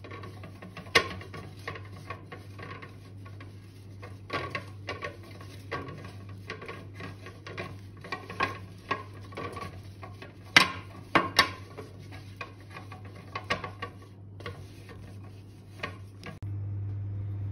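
A paper towel rubbing grease into a fluted metal bundt pan: soft scraping against the metal with scattered sharp taps and clinks as the pan shifts, over a steady low hum. About a second before the end the handling stops and a steadier, louder hum takes over.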